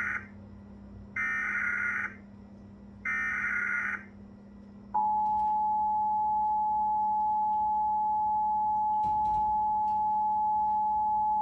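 Emergency Alert System SAME header: the end of one and then two more roughly one-second bursts of buzzy digital data tones, about a second apart, encoding the flash flood warning. About five seconds in, the steady EAS attention tone of two close pitches starts and holds, signalling that an emergency message follows.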